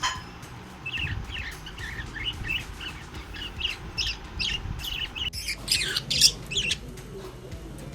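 Budgerigars chattering: a run of quick, short chirps, then louder, sharper calls about five and a half seconds in.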